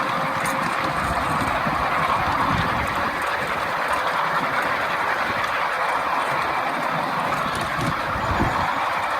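Miniature ride-on railway train running along ground-level track: a steady rumble of wheels on rail with a few clicks from the track.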